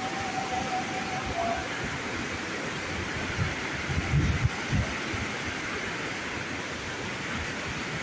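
Steady rushing of waterfall and river rapids, an even hiss of white water. A few low thumps about four seconds in, and a thin steady tone during the first second and a half.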